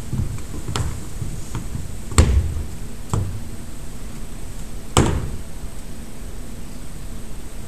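Drill boots stamping on a wooden hall floor as cadets halt and turn: four single stamps spaced one to two seconds apart, the loudest near the end, each ringing on in the large hall.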